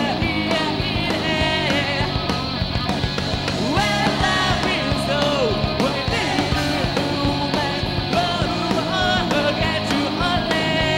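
Live pop-punk rock band playing: electric guitar, bass and drums, with a melody line that bends and wavers over them.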